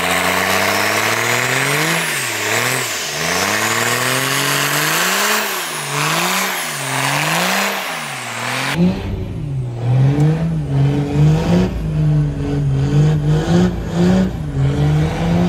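Diesel engine of a lifted-stack second-generation Dodge Ram pickup revving hard with the throttle feathered, its pitch climbing and dropping again and again over the hiss of spinning tyres in a burnout. About nine seconds in the sound cuts to a lower, uneven engine note as the truck pulls away.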